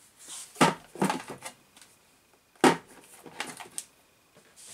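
Scattered knocks and clicks of hard plastic parts as an RC buggy's body shell and roll cage are handled on a workbench, with the sharpest knock about two and a half seconds in.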